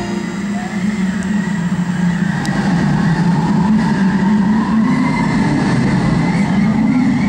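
Loud, rushing, rumbling storm-wind sound effect played over an arena sound system. It swells over the first three seconds, then holds steady.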